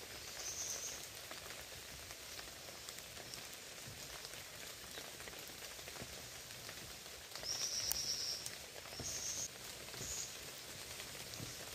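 Faint outdoor ambience: a steady hiss with a few short, high, flat buzzing calls, the longest about a second long near the eight-second mark.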